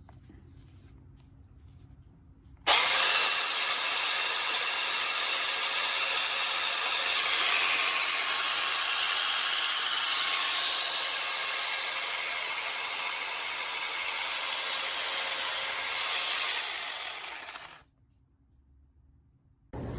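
Cordless battery-powered 6-inch mini chainsaw starting suddenly and running steadily for about fourteen seconds as it saws through wood, then winding down and stopping.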